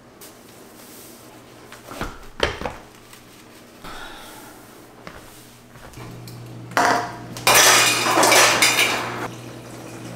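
A couple of knocks, then a few seconds of clattering and clinking of small hard objects being handled. A low steady hum comes in about six seconds in.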